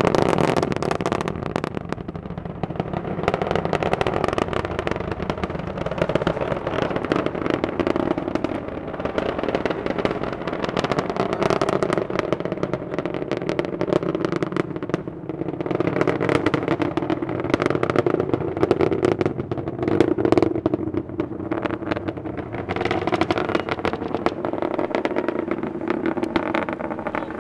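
Rocket noise from Space Shuttle Endeavour's ascent: the solid rocket boosters and main engines make a continuous rumble full of rapid crackling that swells and eases. It is loud enough to overload the small camera's microphone.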